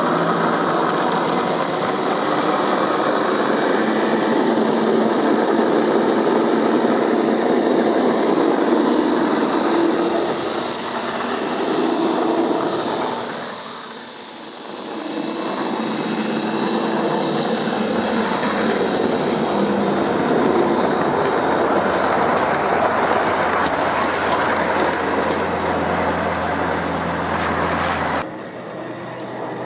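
Large-scale model diesel locomotives running on their track: a steady motor and wheel noise as they roll over the rails, with a low hum coming in during the second half. The sound cuts off abruptly near the end.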